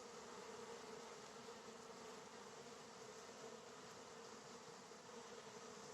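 Faint, steady hum of many honeybees flying in and out of the hives. Foragers are returning laden with nectar and pollen; this is the 'acacia hum' of a strong nectar flow.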